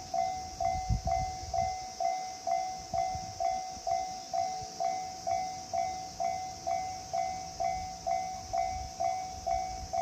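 Japanese railway level-crossing warning bell ringing steadily, about two strikes a second, each a clear ding that fades quickly. It is the crossing's warning that a train is approaching.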